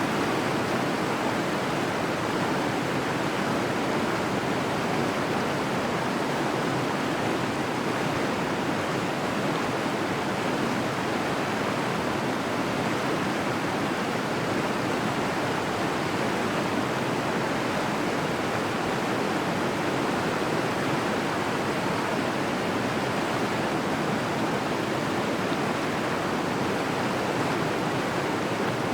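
Waterfall: a steady, unbroken rush of falling water with no change throughout.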